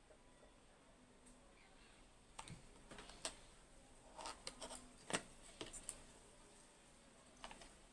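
Quiet room tone with scattered light clicks and taps from a printed circuit board and soldering iron being handled on a workbench, a cluster of them in the middle and a couple more near the end.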